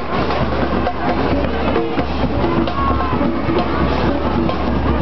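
Parade music with drums and percussion, heard among the steady din of a street crowd.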